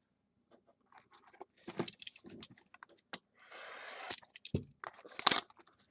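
Plastic shrink wrap on a trading-card box being opened and handled: crinkling rustles and clicks, with a brief steady hiss a little over halfway through, as of the film being slit or torn.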